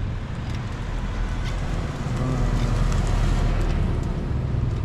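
Small motorbike engine running steadily while riding, with wind rushing over the microphone and tyre noise. Both get a little louder about two seconds in.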